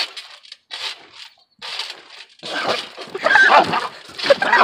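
Two people bouncing on a trampoline while gulping water from plastic bottles, with short noisy bursts about twice a second. From about two and a half seconds in come louder gasping and sputtering sounds as water is forced back out.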